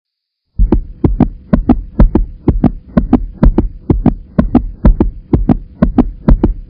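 Heartbeat sound effect: a fast, steady double thump, about two beats a second, starting about half a second in.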